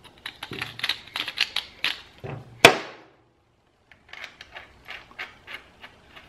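Irregular small metal clicks and taps as a MIG welding gun's nozzle and contact tip are handled and worked on by hand, with one sharp, louder clack a little before halfway. After a short pause the softer clicking resumes.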